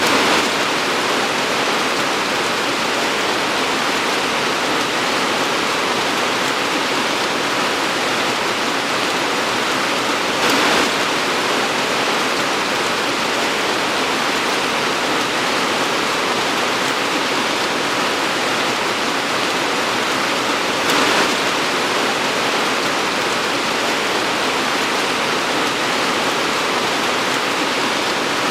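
Torrential rain pouring steadily, a dense even hiss, with three brief louder surges about ten seconds apart.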